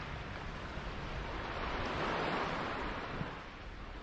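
Steady rush of wind and sea water around a sailboat, swelling about two seconds in and easing off near the end.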